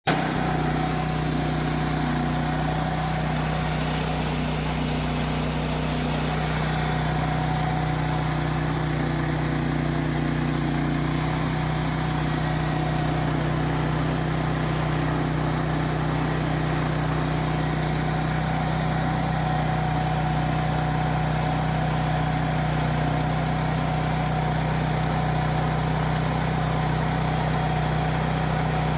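Small gasoline engine of a homemade bandsaw sawmill running at a steady speed.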